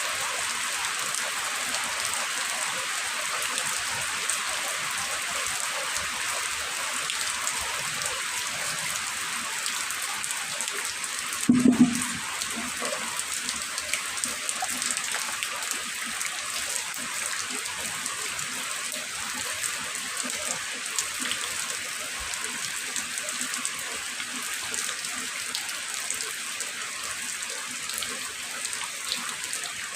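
Steady rain falling, an even hiss of many drops. About twelve seconds in, a brief loud knock stands out over it.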